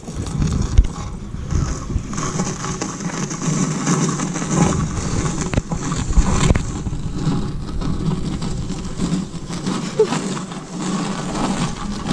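Tire sled being dragged along the ground on a chain, the rubber scraping in a continuous, uneven rasp with short knocks.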